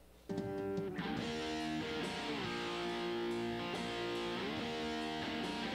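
Electric guitar recording playing sustained chords that shift a few times, run through a software compressor set to a hard knee, which holds it at a flat, even level.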